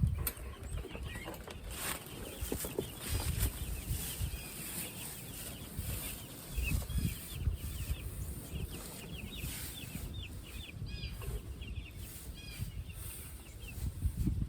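Young meat chickens peeping, many short high chirps in quick succession, over irregular low thumps and rumbling.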